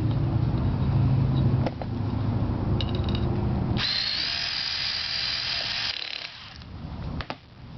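Power driver running as it drives screws through an HP server rail into a threaded-hole rack: a steady whir that drops in pitch about a second and a half in, then a higher, hissier whir for about two seconds, with a few sharp clicks near the end.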